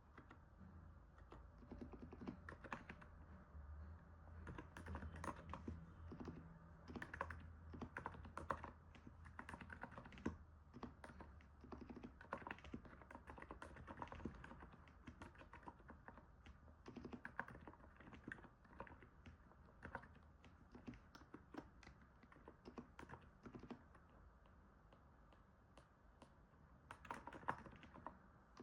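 Typing on a NiZ 68 Pro electro-capacitive keyboard: irregular runs of soft keystrokes with short pauses, a sound likened to stepping on snow. A faint low hum lies underneath.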